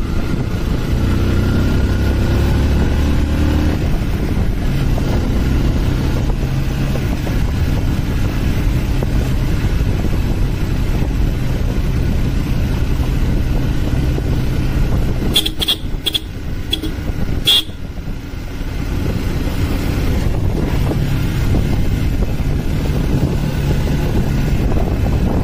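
Motorcycle engine running under way, with wind rushing over the microphone. A little past halfway the engine sound drops for a couple of seconds and a few short, sharp high-pitched sounds come through.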